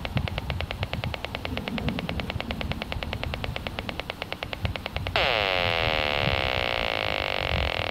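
Audio output of a Gigahertz Solutions HF35C RF analyzer, turning the pulsed radio-frequency signals it picks up into sound. First a fast, even ticking, then about five seconds in it switches abruptly to a louder continuous buzzing tone that slides down in pitch.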